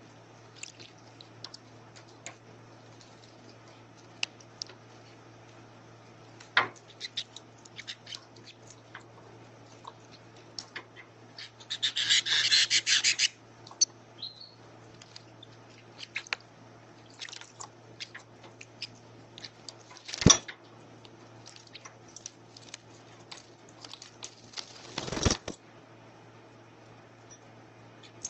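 Canaries bathing in water: scattered light taps and clicks, with bursts of splashing and wing-fluttering about 12 seconds in and again near 25 seconds, and one sharp knock around 20 seconds. A steady low hum runs underneath.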